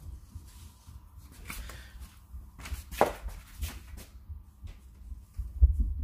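Window blind slats clicking and clacking against each other as they are handled, with a few sharp clacks in the middle, over a low rumble.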